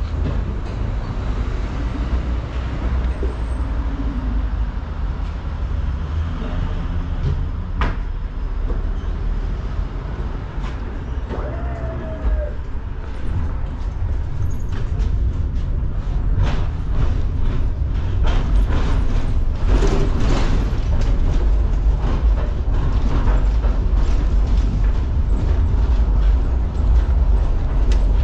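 Tram running along its track, heard from inside the car: a steady low rumble of motors and wheels, with a run of sharp clicks and knocks from about a third of the way in to just past the middle, after which it runs a little louder.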